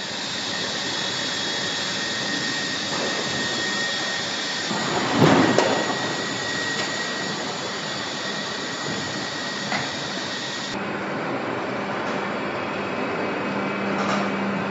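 Steady machinery noise of a car body assembly line, swelling briefly about five seconds in. A low hum comes in near eleven seconds.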